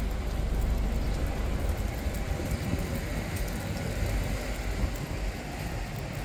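Pram wheels rolling over paving stones: a steady, rough low rumble of jostling and rattling, with city street noise behind it.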